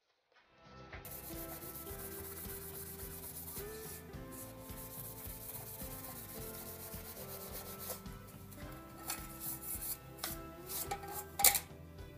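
Metal scouring pad scrubbed rapidly back and forth over a bare copper-clad PCB board, a steady scratchy rubbing that starts about half a second in and cleans and brightens the copper before toner transfer. Near the end there is one sharp, loud click.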